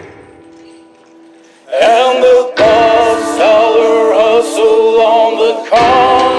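Background music: a quiet held chord, then a singing voice with accompaniment comes in loudly a little under two seconds in.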